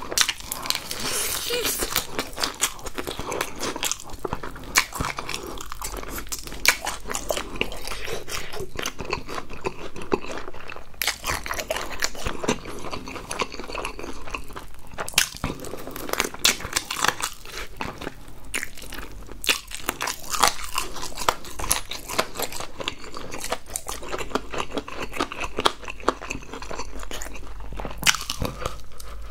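Crispy seasoned fried chicken being bitten and chewed close to the microphone: a steady stream of crunching crackles from the coating, with wet chewing between bites.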